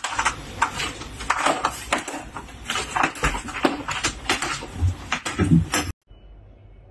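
Irregular clicking and clattering, many sharp taps over about six seconds, which cut off suddenly and leave a faint steady hum.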